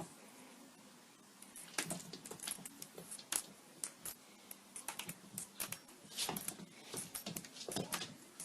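Irregular quick clicking and tapping on a hard surface, starting about two seconds in, several clicks a second.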